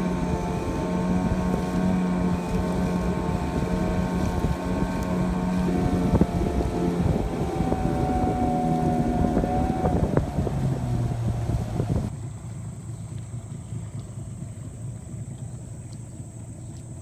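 Outboard motor of a river longboat heard from aboard, running at a steady speed, then throttling down about ten seconds in and cutting out about two seconds later, leaving the wash of water and wind.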